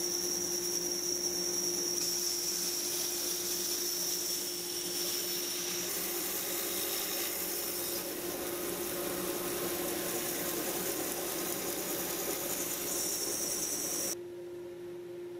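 Bandsaw resawing a thick hardwood board into veneer, the blade cutting steadily over the saw's running hum. About fourteen seconds in the cutting sound stops suddenly, leaving only the saw's quieter steady hum.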